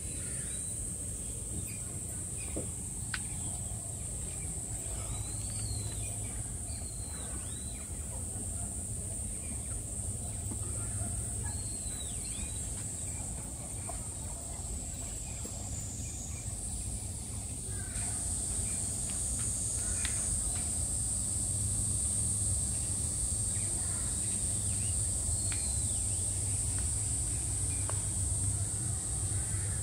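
Steady ambience: a high, even drone over a low hum, with scattered short, high chirps now and then.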